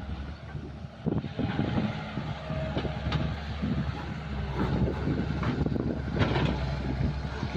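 Excavator diesel engine running steadily, with scattered knocks and clanks.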